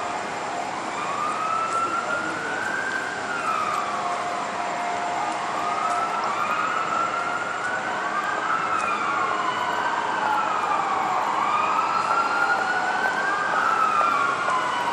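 Several emergency-vehicle sirens wailing at once, their slow rising and falling tones overlapping out of step and growing slightly louder toward the end.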